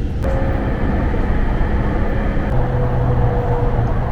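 Train running, a steady rumble with humming tones that change pitch about two and a half seconds in.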